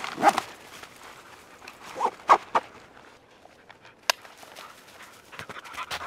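A large hiking backpack being hoisted and shouldered, with a cluster of loud rustling bursts about two seconds in. A single sharp click about four seconds in as the hip-belt buckle snaps shut.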